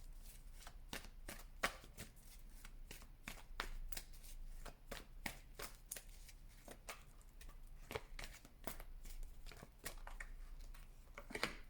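Tarot cards being shuffled by hand: a run of short, irregular card snaps and slaps, several a second.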